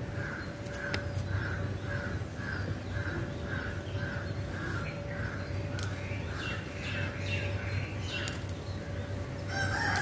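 A bird repeats a short call evenly, about two notes a second. A rooster starts crowing near the end.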